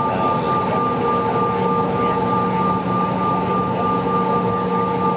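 Cabin noise of a Mitsubishi CRJ-900's rear-mounted GE CF34 turbofan engines running at low taxi thrust. It is a steady rumble with several steady whining tones held over it.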